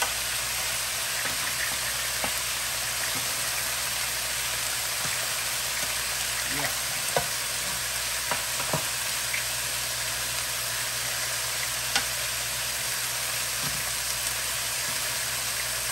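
Brussels sprouts and chicken thighs sizzling steadily in frying pans, with a few sharp clicks of metal tongs against a pan as the chicken thighs are turned.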